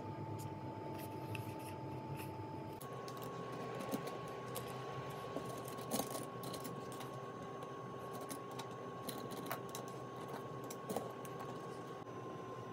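Wooden craft sticks being picked out of a tray and set down on a wooden tabletop: light scattered clicks and taps of wood on wood, the sharpest about 4, 6 and 11 seconds in, over a steady hum.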